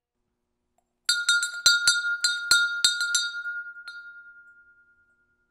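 A cast pure-aluminum bell rung with about ten quick, uneven strikes starting about a second in, one tone ringing on and dying away over the next couple of seconds. Its caster judges it a poor bell sound, as he expected of aluminum.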